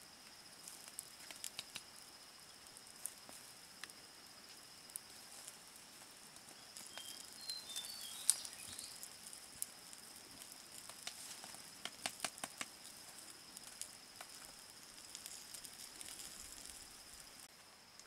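Faint scattered crackles and ticks from the smouldering embers of a wood fire, over a steady high insect drone. A few short bird chirps come about halfway through.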